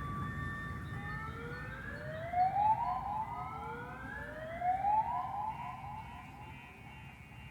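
Sampled siren from a Ukrainian war soundscape library, played on a keyboard: two rising wails, each climbing for about two seconds, over a low rumble that fades away. A steady held tone stops about a second in.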